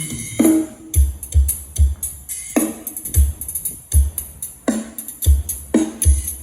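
Music with a heavy kick-drum beat and tambourine, played back loud through an SK Audio system with a 12-inch subwoofer cabinet and 6.5-inch midrange and tweeter speakers, the deep bass thumps standing out.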